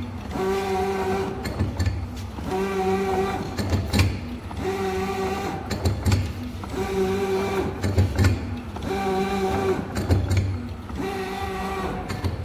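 Kubba encrusting machine running through its forming cycle. A motor whine holds a steady pitch for about a second and then slides down and back up, with a click at each changeover. The cycle repeats about every two seconds.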